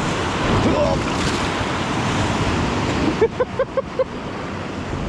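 Rushing whitewater of the Salmon River at high flow, with waves and wind on the microphone. A short rising yelp comes about a second in, and a quick run of five short pitched vocal notes follows a little after three seconds.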